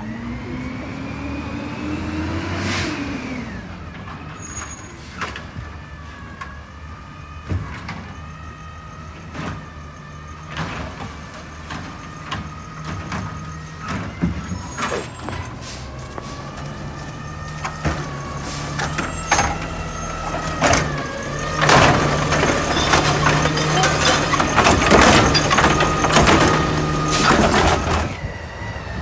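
Garbage truck working. Its engine revs up with a rising whine over the first few seconds, then runs on under repeated clanks and bangs. The clanks thicken into a dense, loud clatter over the last third.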